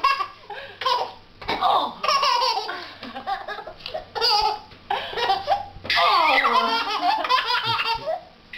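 A baby and a woman laughing in repeated bursts, with one long, unbroken peal about six seconds in.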